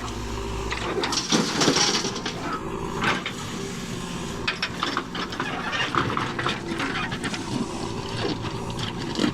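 Diesel engine of heavy earthmoving machinery running steadily, with irregular knocks and rattles over it.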